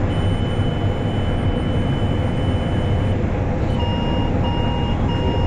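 Steady drone of a combine harvester heard inside its cab. An electronic alarm tone sounds for about three seconds, then beeps three times near the end: the combine's alert that its grain tank is full.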